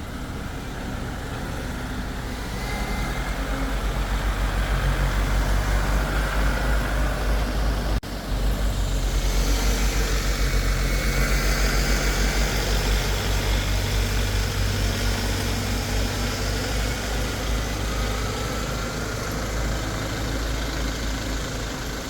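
Motor vehicle engine running steadily with a low, pulsing drone, cut off briefly about eight seconds in, with a hiss over it.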